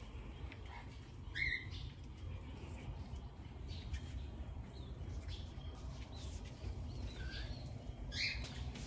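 Sun conures giving a few short, sharp chirping calls, the loudest about one and a half seconds in and again near the end, with softer chirps between, over a low steady rumble.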